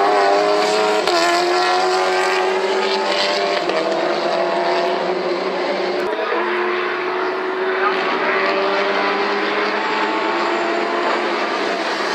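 Audi RS3 LMS touring cars' turbocharged four-cylinder engines running at racing speed. The note holds fairly steady with slow slight rises and falls, and breaks off abruptly about six seconds in before going on.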